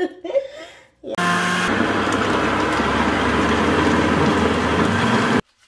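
Countertop electric blender running at speed, a loud, steady whirring with a low motor hum. It starts abruptly about a second in and cuts off suddenly near the end.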